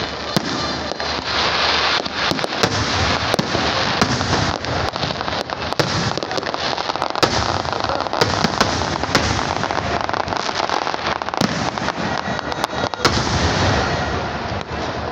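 A fireworks display going off: a continuous crackle and hiss with many sharp bangs scattered through it.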